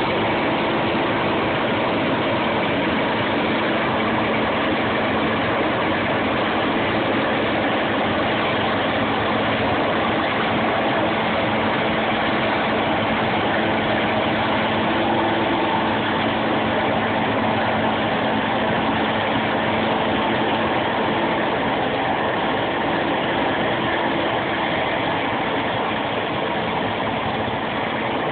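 Claas Lexion 550 combine harvester running steadily while harvesting wheat: a constant engine and machinery drone with a few faint held tones, level and unchanging.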